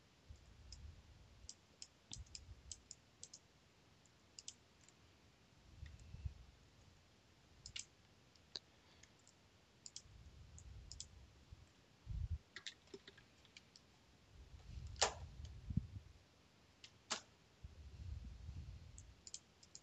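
Faint, irregular computer mouse clicks, single and in small clusters, with a few soft low bumps in between.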